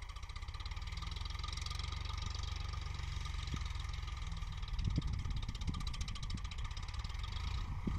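Tractor diesel engine running steadily at a distance, with an even chugging beat. From about five seconds in, wind buffets the microphone.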